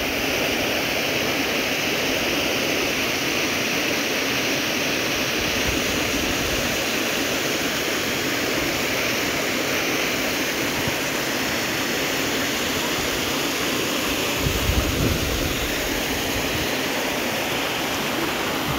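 Steady rushing noise, with wind buffeting the phone's microphone in low gusts about fourteen seconds in and again near the end.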